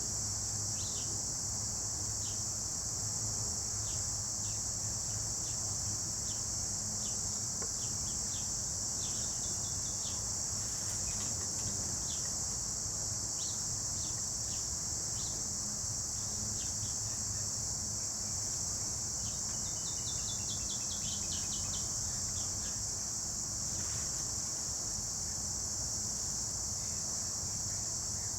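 Steady high-pitched chorus of crickets, with many short bird chirps scattered over it and a brief quick series of descending notes about twenty seconds in.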